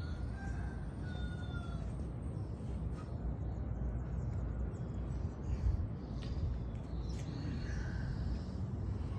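Outdoor ambience: a steady low rumble with faint, short bird calls scattered throughout.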